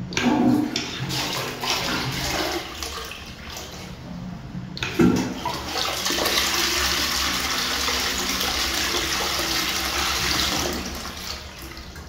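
Johnson Suisse toilet flushed with a wall-mounted push button: a sudden rush of water into the bowl, easing about four seconds in, then surging again and running steadily before tapering off near the end.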